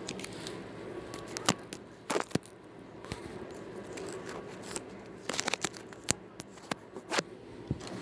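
Scattered sharp clicks and crackles at irregular times, with some faint rustling, over a low steady room hum; a quick cluster of clicks comes about five and a half seconds in.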